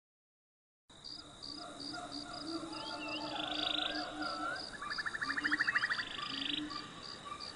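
A chorus of frogs and insects: steady high chirping and buzzing with repeated croaks, and a louder rattling trill about five seconds in. It starts abruptly about a second in.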